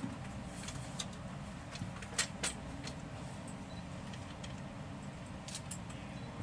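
Muffled, steady low rumble of an F/A-18 Super Hornet's twin jet engines taxiing on the carrier deck, dulled as if heard through glass. A few sharp clicks stand out, two of them close together about two seconds in.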